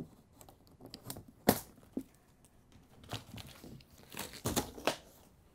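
Packing straps on a cardboard box being cut with snips and pulled away: a sharp snap about a second and a half in, a smaller click just after, then rustling and scraping of strap against cardboard.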